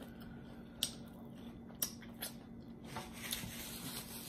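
Close-miked chewing with the mouth closed, with three sharp mouth clicks, the last two close together.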